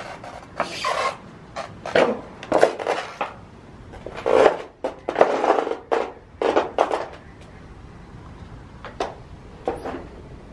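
Footsteps scuffing and crunching on a gritty, debris-strewn floor. An irregular run of steps for about seven seconds, then two more near the end.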